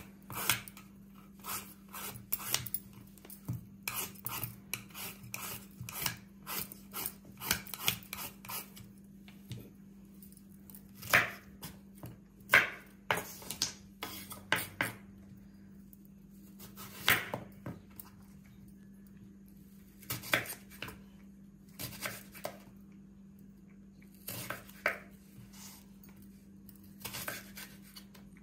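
Raw green banana being peeled with a vegetable peeler and sliced with a kitchen knife on a wooden cutting board: irregular scraping strokes and sharp knocks of the blade against the board, some much louder than others.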